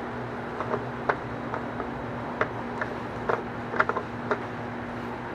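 Scattered light clicks and taps of tools and parts being handled during an oil change, over a steady low hum.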